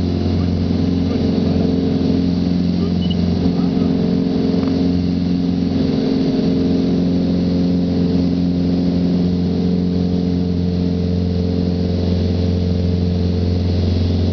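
Mooney single-engine piston airplane's engine and propeller at full takeoff power, heard from inside the cabin: a loud, steady drone that holds unchanged through the takeoff roll, liftoff and initial climb.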